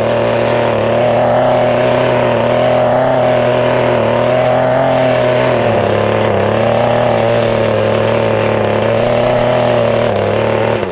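Small petrol-engine mini tiller running hard and steady while its tines churn shallowly through mossy turf and compacted soil. The engine note dips briefly about halfway through and then recovers.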